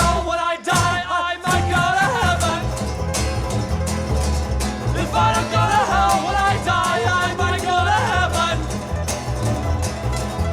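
Background song with a steady drum beat and a bending melodic line over it, with no words sung.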